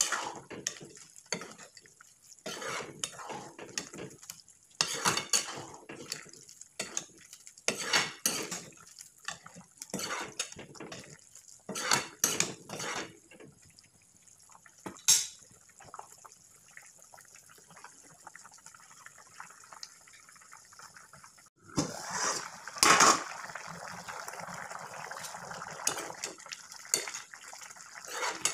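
Steel ladle stirring a watery vegetable curry in a steel kadhai, scraping and clinking against the pan roughly once a second. It goes quieter in the middle, then the stirring is louder and more continuous over the last several seconds.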